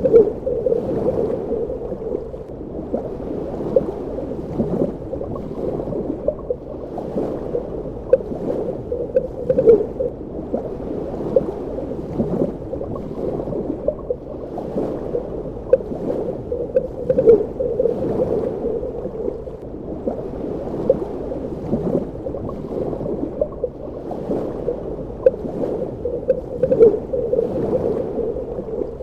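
Underwater ambience: a muffled, steady wash of water with bubbling gurgles and many small clicks and pops scattered throughout.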